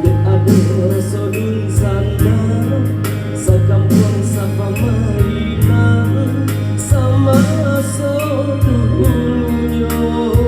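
A band playing a Minang pop song at a sound check, with a strong bass line under a wavering lead melody.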